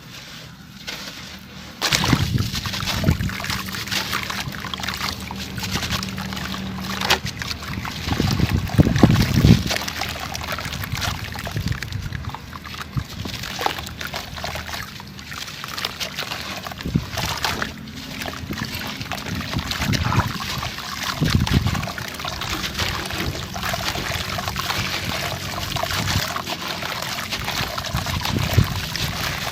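Crunchy chunks of sand-cement crushed and crumbled by hand, a dense gritty crackling of many small clicks that starts about two seconds in and comes in heavier bursts now and then.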